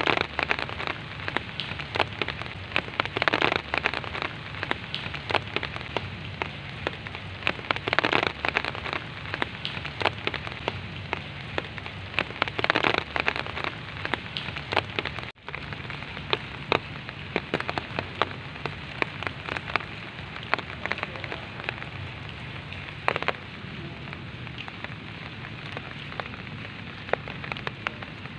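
Steady rain falling on leaves and grass: an even hiss full of close, sharp drop ticks, with a few heavier spells of drops and a momentary gap about halfway through.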